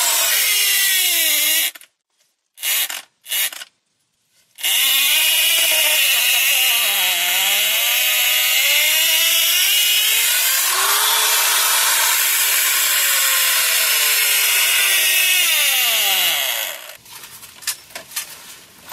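Half-inch hammer drill with an 18-inch masonry bit boring into soil, its motor pitch dipping and rising as the bit loads up in the dirt. It runs about two seconds, stops, gives two short blips, then runs for about twelve seconds before cutting off. A few light knocks follow near the end.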